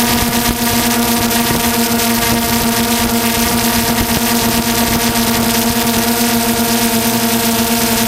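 DJI Phantom 2 quadcopter's motors and propellers running steadily, a constant whine heard from the GoPro mounted on the drone, with some wind rush.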